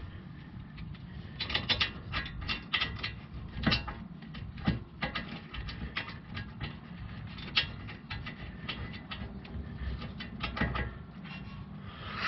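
Irregular metallic clicks and taps from brake caliper parts being handled and fitted by hand, over a steady low background hum.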